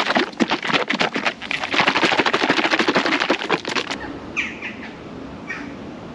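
A one-litre plastic bottle of black leather paint being shaken hard, the liquid sloshing in a rapid rhythmic rattle. The shaking stops about four seconds in, followed by faint pouring as the paint goes into the glass jar of a small spray gun.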